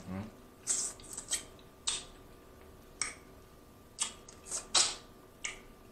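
Close-miked wet mouth sounds of a person eating boiled crawfish: a string of short, sharp smacks and sucks at irregular intervals, as he sucks seasoning off his fingers and the meat into his mouth.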